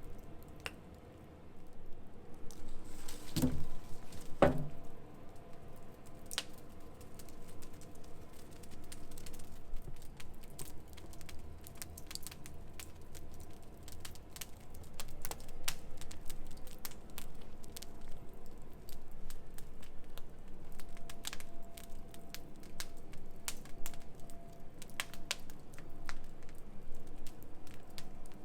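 Wood campfire crackling, with irregular sharp pops throughout and two heavier knocks about three and a half and four and a half seconds in.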